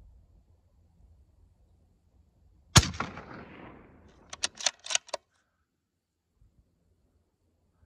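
A single shot from a suppressed Tikka T3x CTR .223 bolt-action rifle, fired about three seconds in, its report trailing off over about a second and a half. It is followed by a quick run of about five sharp clicks as the bolt is worked to chamber the next round.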